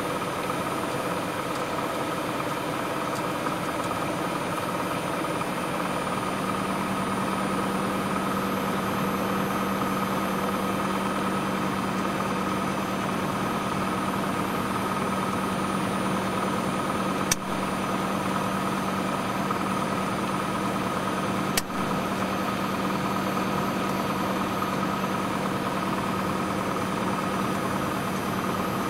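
Small airplane's engine running steadily, heard from inside the cabin, with a low hum joining about six seconds in. Two sharp clicks sound in the second half.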